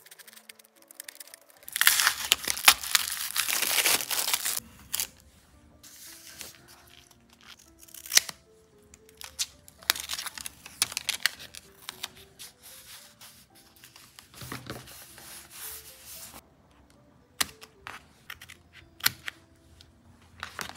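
Crinkling and tearing of plastic and paper packaging handled by hand, loudest for a couple of seconds near the start and then on and off with light taps, over soft background music.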